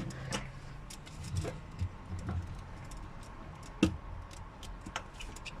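Scattered light clicks and taps, with one sharper knock about four seconds in, over a low steady hum.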